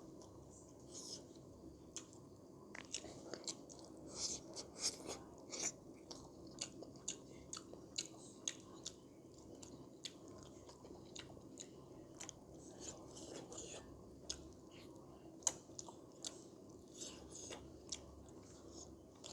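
Close-up chewing and biting with wet mouth smacks, clicking every fraction of a second, over a steady low hum.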